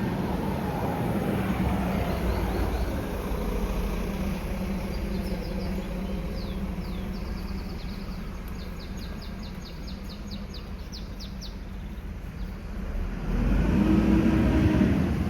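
Street ambience under a steady low wind rumble. A small bird chirps in the middle, speeding up into a rapid trill. Near the end a vehicle passes close by, the loudest sound here.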